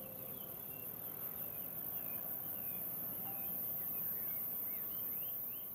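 Small birds chirping, a scatter of short high notes that gets busier near the end, over a steady high hiss of outdoor ambience.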